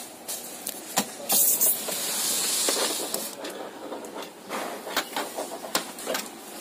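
Hands handling a printer's power cable and plastic casing: scattered light clicks and knocks, with a brief rustle about a second and a half in, over a steady faint hiss.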